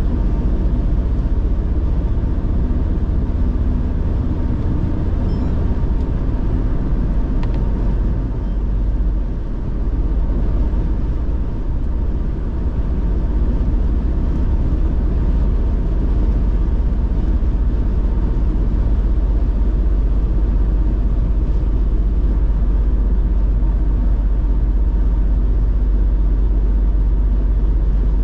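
Steady road and engine noise of a car driving along a highway: a continuous low rumble, easing briefly about ten seconds in.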